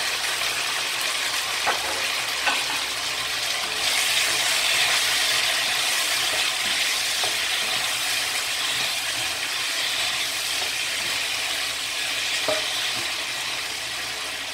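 Chicken wings sizzling in a wok in soy sauce and Shaoxing wine over medium-high heat, stirred and tossed with a spatula. The sizzling grows a little louder about four seconds in, and there are a few light knocks of the spatula against the wok.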